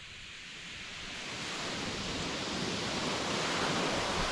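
Sea waves breaking and washing up a shingle beach, the surf swelling steadily and loudest near the end.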